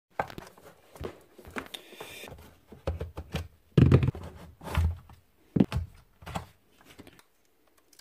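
A Bosch GBH 4 DFE rotary hammer being handled and turned over on a concrete bench: a string of knocks, clunks and plastic clicks, loudest about four seconds in, dying away near the end.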